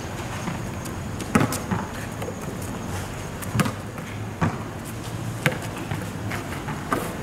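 Basketball bouncing and hitting the asphalt court during play: about six sharp, irregular thuds, the loudest about a second and a half in.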